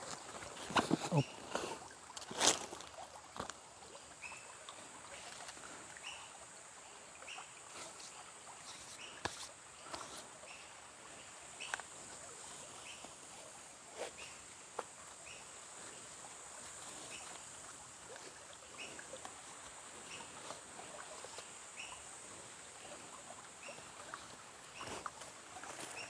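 Quiet forest ambience: a steady high hiss under a short high chirp that repeats a little more than once a second. Rustling and a sharp tap come in the first few seconds as a backpack is set down on the leaf-littered slope.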